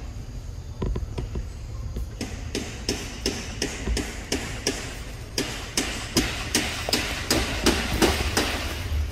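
A series of sharp knocks, sparse at first and then regular at a little under three a second and louder from about the middle, over a low rumble.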